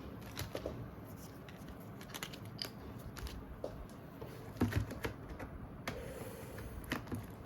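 Irregular small plastic clicks and taps as the back cover of a Lenovo phone is pried and worked at to get it off, with a short flurry of clicks about halfway through.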